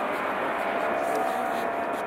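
McDonnell Douglas MD-11 freighter on short final, its three turbofan engines making a steady rushing noise with faint whining tones.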